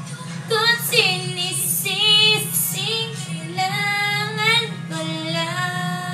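A woman singing a slow Tagalog love song, holding and bending long notes, over a steady low hum.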